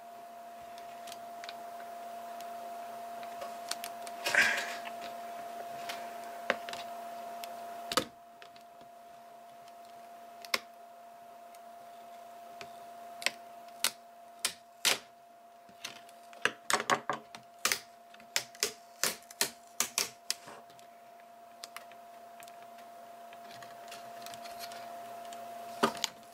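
Irregular sharp plastic clicks and taps from handling a laptop's screen assembly, thickest in a run past the middle, over a steady low electrical hum.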